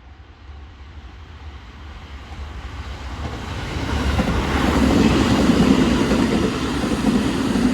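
Electric commuter train approaching along the track, its running noise growing steadily louder and peaking in the second half as it comes close.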